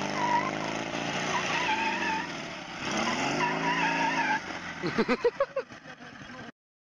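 Sidecar motorcycle engine revving up and down twice as the outfit swerves, with tyre squeal on the asphalt. A quick run of short pulses follows, and the sound cuts off suddenly near the end.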